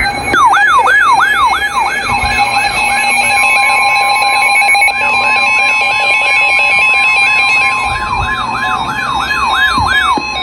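Emergency alert alarm: an electronic siren yelping rapidly up and down, about three sweeps a second. It is loudest at the start and again near the end. From about three seconds in, it is joined by a steady tone around 1 kHz, the NOAA Weather Radio warning alarm tone that comes before a severe thunderstorm warning.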